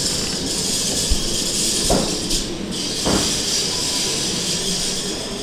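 Rail vehicle running: a steady rushing hiss of wheels on track, with two short knocks about two and three seconds in.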